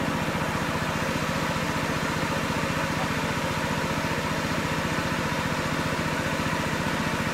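Small engine running steadily at an even, rapid beat, the engine driving the water pump that drains the fish pond.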